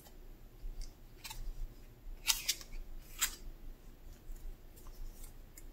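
About half a dozen short, sharp clicks and taps, spread irregularly, from a small plastic acrylic-paint tube being capped and craft supplies being handled on a table.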